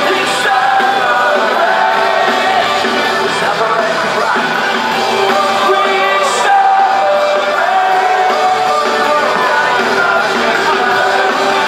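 Live rock band playing loud amplified music with sung vocals, recorded from within the concert crowd.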